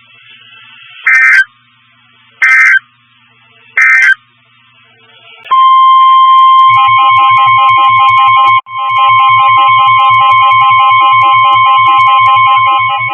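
Three short bursts of Emergency Alert System data tones, the end-of-message signal closing the warning. About five seconds in, a loud steady alert tone near 1 kHz starts, broken once for an instant, with synthesizer music pulsing under it.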